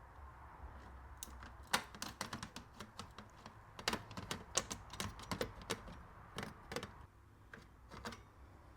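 Irregular light clicks and taps of small parts and tools being handled on the opened fader section of a Midas M32 mixing console, busiest through the middle and thinning out near the end.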